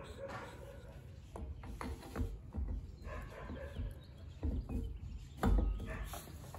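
Irregular metal knocks and clicks with dull thumps, as a wheel hub assembly is fitted and bolted onto a Dana 30 front axle; the heaviest knock comes near the end.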